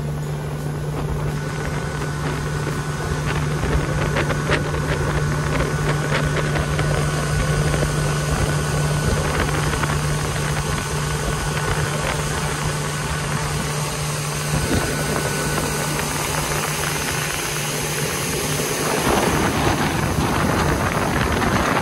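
Fishing boat's outboard motor running at a steady pitch while the boat is underway. About nineteen seconds in, rushing wind and water spray take over as the boat runs at speed.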